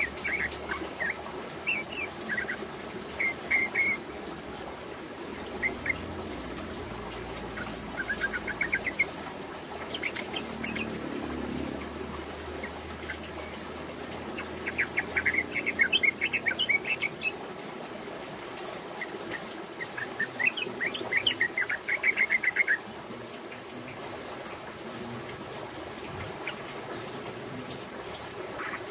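Female yellow-vented bulbul (trucukan) singing its rapid rolling 'ropel' song: short phrases of fast, repeated chattering notes, with the longest runs about a quarter of the way through the second half and again a little later.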